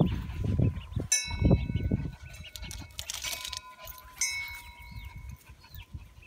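Small chicks peeping faintly while a wind chime rings out twice, once about a second in and again near the middle, over a low rumble on the microphone.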